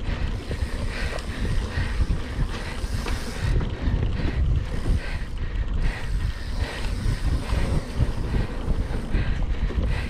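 Wind buffeting the microphone of a mountain bike rider's camera over the rumble and rattle of the bike riding fast over rough trail.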